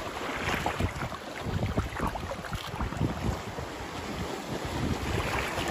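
Wind gusting on the microphone over the wash of sea water, with uneven low rumbling buffets.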